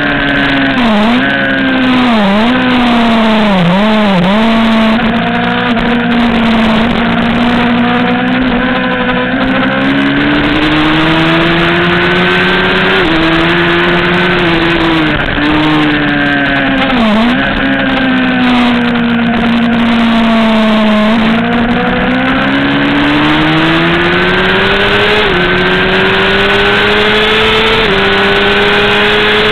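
Racing motorcycle engine running hard at high revs, heard from on board over heavy wind rush. Its pitch dips sharply a few times in the opening seconds, climbs under acceleration, sags in the middle as the bike slows, then climbs again with a couple of sudden small drops and steps.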